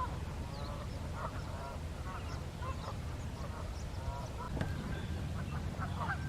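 Canada geese honking some way off, with short calls scattered throughout that come thicker near the end.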